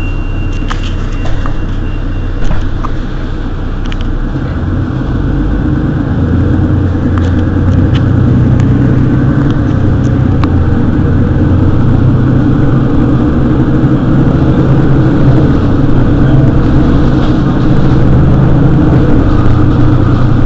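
Mercedes-Benz Citaro city bus engine running with a steady low drone that grows louder about five seconds in and then holds. A thin high steady beep ends about two and a half seconds in, with a few sharp clicks in the first seconds.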